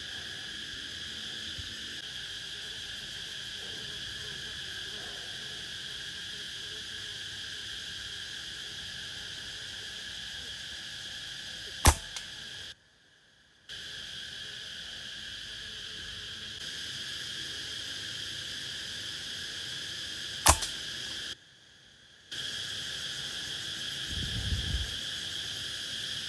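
Two shots from a PCP air rifle, each a single sharp crack, about eight and a half seconds apart, over a steady chirring of insects. A short low rumble comes near the end.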